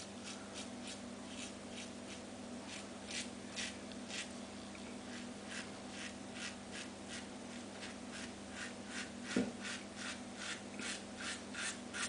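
Merkur slant-bar double-edge safety razor with a Feather blade scraping through lathered stubble in short, quick strokes, about two to three a second, coming faster in the second half.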